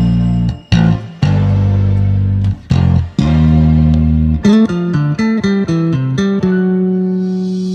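Background music: a bass guitar holding long low notes, then a quicker run of plucked notes about halfway through, ending on a held note.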